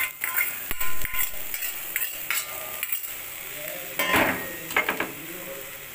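Boiled chickpeas being tipped and scooped with a metal spoon into a metal kadai of fried onions, the spoon knocking and scraping against the pan in a series of clinks, loudest about a second in and again near four seconds, over a faint sizzle from the hot pan.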